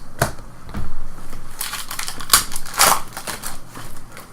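Packaging crumpled and crinkled by hand: a run of irregular rustling bursts with small ticks between, the loudest a little past the middle.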